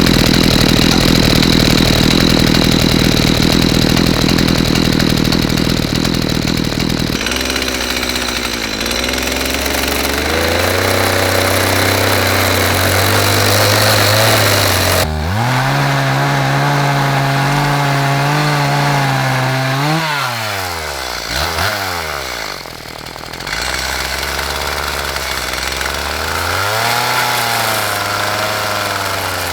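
Two-stroke chainsaw cutting into beech wood, its engine pitch rising and falling with the load. About three quarters of the way in, the engine sweeps down and back up with a brief drop in level.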